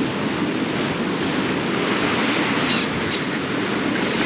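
Seawater washing and sloshing around the pier pilings in a steady wash, with wind on the microphone. A couple of light clicks about three seconds in.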